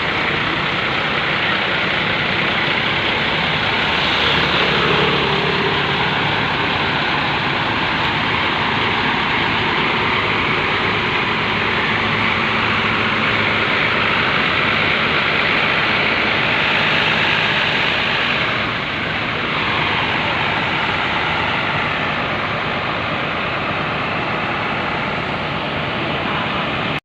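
Heavy road traffic close by: large vehicle engines and tyre noise running steadily, with one vehicle passing with a falling pitch about two-thirds of the way in.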